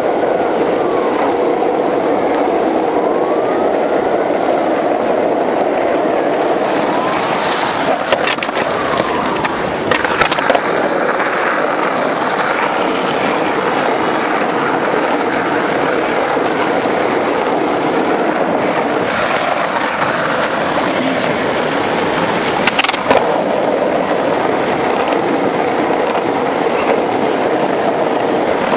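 Skateboard wheels rolling over asphalt, a steady rolling noise from a group of skaters cruising, with a few sharp clacks breaking in.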